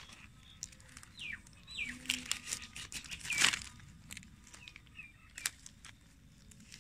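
Dry fallen leaves rustling and crackling under hands working close to the ground, with a few short, falling bird chirps; the loudest crackle and chirp come about three and a half seconds in.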